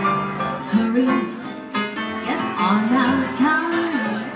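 Live jazz performance: a female vocalist singing into a microphone, her melody gliding up and down, over a band accompaniment with a steady beat.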